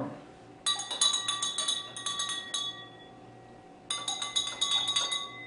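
A spoon stirring water in a drinking glass, clinking quickly against the glass with a ringing tone, in two bouts of about two seconds and a second and a half.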